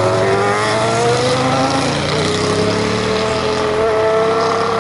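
MV Agusta motorcycle engine accelerating hard as it passes, its pitch rising over the first couple of seconds and then holding high. It has a bright, screaming exhaust note, with a second motorcycle following close behind.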